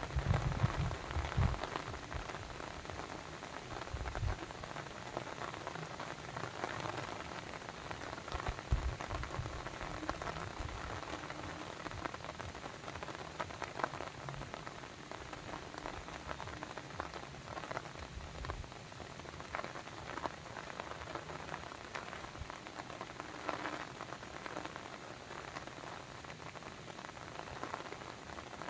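Steady rain falling, a dense patter of drops. There are a few low rumbles in the first ten seconds, the loudest at the very start.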